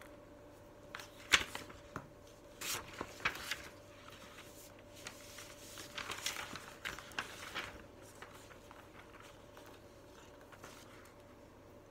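Wooden puzzle pieces handled on a wooden pattern board: a sharp click about a second in, then scattered clicks and scraping as pieces are slid and pressed into place.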